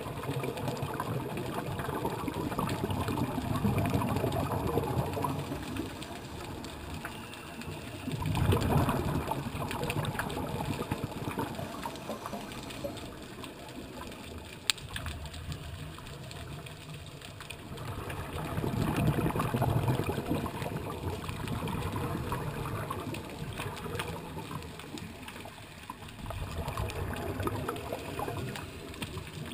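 Scuba diver's regulator breathing, heard underwater through the camera housing: muffled rushes of exhaled bubbles about every eight or nine seconds, with one sharp click about halfway through.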